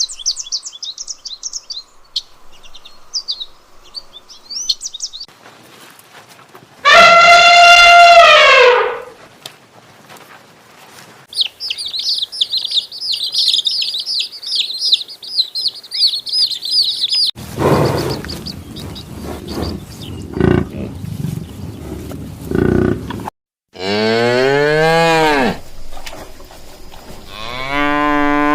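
A run of separate animal calls: bird chirping, then one loud call that falls in pitch, then a fast high-pitched bird chatter lasting several seconds, then low grunting sounds. Near the end come two long, low cattle moos.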